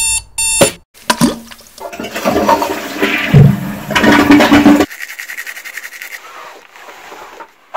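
A digital alarm clock beeping twice at the start, then a click and a toilet flushing with a loud rush of water that stops abruptly about five seconds in. After it, a toothbrush scrubbing teeth.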